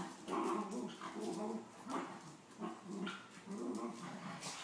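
Dogs play-fighting, growling in short repeated bursts about once or twice a second.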